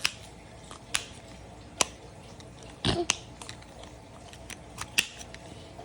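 Irregular sharp plastic clicks, about six of them, as a coloured-ring twisty puzzle toy is turned by hand, with a duller knock about three seconds in.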